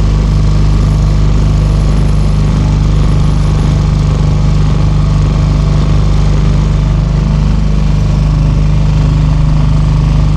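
Outboard motor of a small hire boat running steadily and loudly at an even chug.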